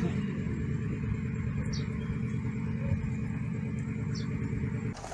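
Motor vehicle engine running steadily with a low rumble, cut off suddenly near the end.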